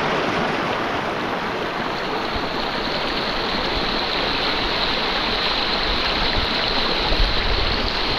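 Steady rushing of a river's flowing water close to the microphone.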